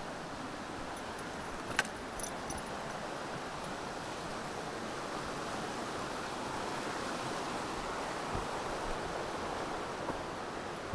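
Steady rushing of a brook's water, swelling slightly midway. A couple of light metallic jingles come about two seconds in.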